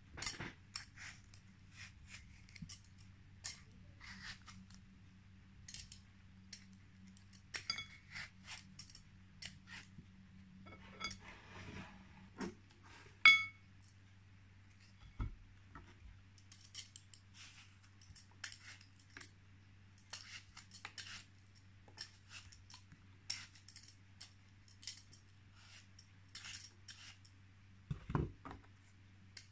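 Metal Y-peeler scraping the skin off apples in short strokes, with sharp metallic clinks now and then, the loudest about halfway through, and a couple of dull knocks near the end, over a low steady hum.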